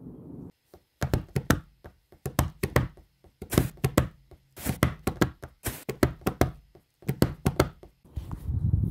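Quick clusters of sharp knocks, several strokes in each burst, repeating with short gaps for about seven seconds.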